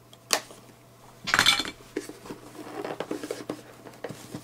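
A small cardboard product box being opened by hand: a sharp click, then a short loud rasp of cardboard about a second in, followed by rustling and light clicks as the packaging is handled.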